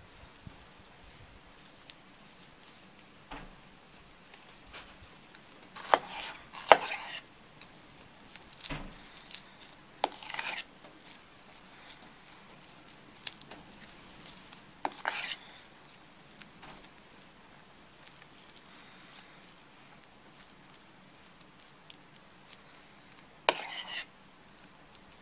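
A table knife scraping and clinking against a stainless steel bowl as fish paste is scooped and pressed into fried beancurd puffs. The sounds come as short scrapes every few seconds, the loudest a pair about six seconds in and another near the end.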